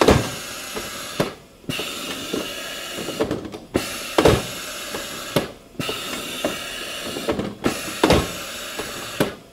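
Flexco XP power applicator driving staples through a hinged belt fastener. It runs in repeated cycles of about two seconds with short pauses between them, a hissing machine noise broken by sharp clunks as each stroke lands.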